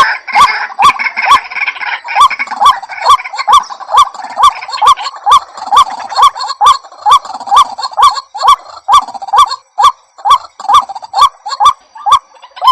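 White-breasted waterhen calling, a short hooked note repeated about twice a second in a steady series. Overlapping higher calls are mixed in during the first couple of seconds.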